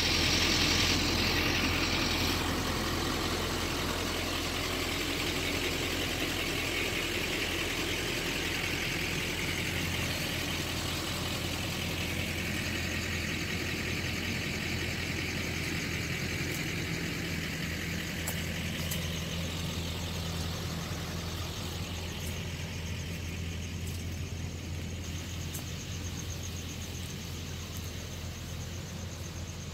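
Tow truck's engine idling steadily.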